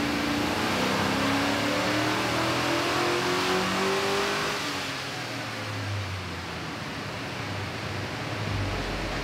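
Chevy Silverado's stock 4.8-litre LS V8 at wide-open throttle on a chassis dyno, its revs climbing steadily for about four and a half seconds; then the throttle closes and the engine and rollers wind down with falling revs.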